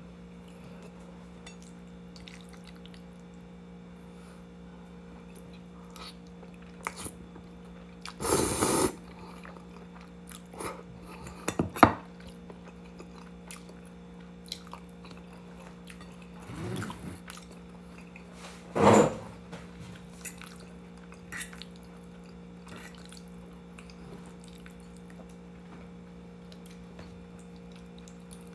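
Eating spaghetti: fork or spoon clinking and scraping on a plate, with chewing, as scattered short clicks and a few brief scrapes, the sharpest clink about twelve seconds in, over a steady low hum.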